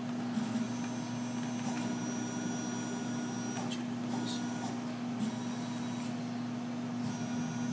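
Emco PC Mill 50 bench-top CNC mill jogging its table, the axis drive motors whining in three spells of movement over a steady machine hum.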